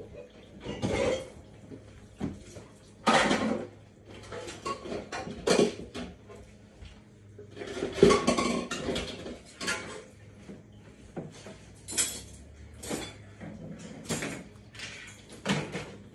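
Dishes and cutlery clattering and clinking as they are handled and set down, in irregular short knocks, loudest about three and eight seconds in.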